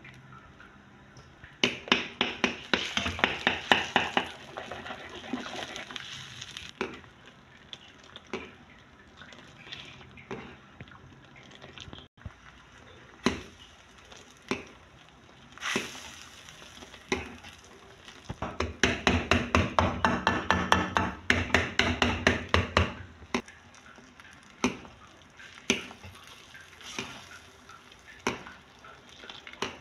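Soup stirred briskly in a pan, the utensil knocking against the pan about five or six times a second in two spells of a few seconds each, one early and one past the middle, with scattered single knocks in between.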